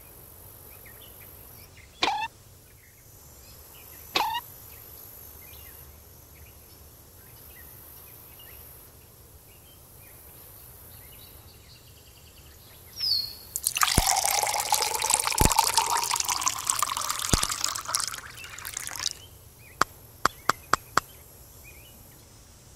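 Milk pouring into a glass for about five seconds, its pitch rising as the glass fills. Two short chirps come before it, and a quick run of five sharp clicks follows.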